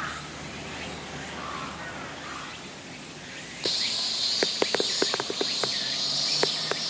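Outdoor ambience with a few faint bird chirps; a little over halfway in, a loud steady high-pitched insect drone starts, with a run of short sharp chirps over it.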